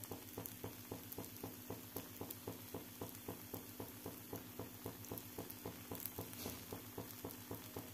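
Faint, even ticking, about five a second, over a low steady hum.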